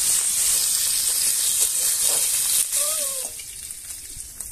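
Small crabs sizzling as they fry in hot mustard oil in a wok, a steady hiss. About three seconds in, the sizzle drops to much quieter.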